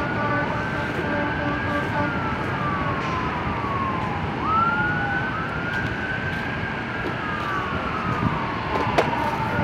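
An emergency vehicle siren wailing: twice it rises quickly to a high pitch and slides slowly back down, over a steady broad roar. A sharp click comes near the end.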